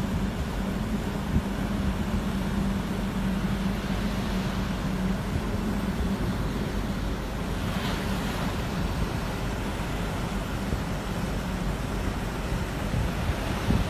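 Strong wind buffeting the microphone over the rush of heavy surf breaking on the beach, with a steady low hum in the first few seconds and a swell of hiss from a breaking wave about eight seconds in.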